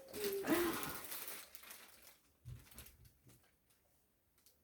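Faint rustling of packaging being handled as a present is taken out of its box, with a brief voice sound at the start and a few soft knocks about two and a half seconds in, then near silence.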